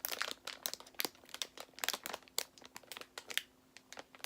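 Plastic packaging crinkling as it is handled: irregular sharp crackles, some louder than others.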